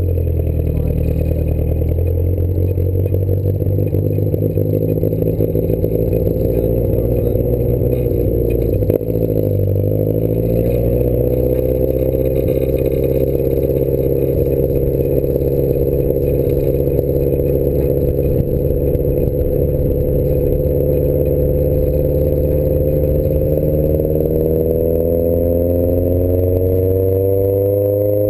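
Triumph sports car engine heard from inside the cabin during an autocross run. It runs steadily at first, and about nine seconds in the car pulls away. The engine then holds its revs and rises in pitch as it accelerates near the end.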